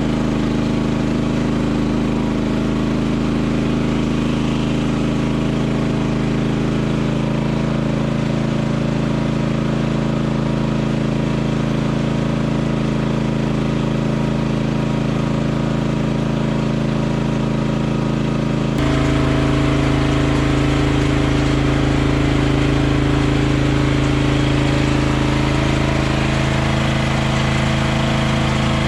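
Machinery running steadily with a low, even hum; its pitch and tone shift abruptly about two-thirds of the way through.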